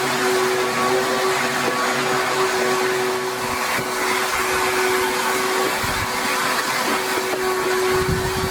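Vacuum cleaner running steadily with a constant motor whine, its hose and brush attachment sucking debris out of the inside of an aircraft wing.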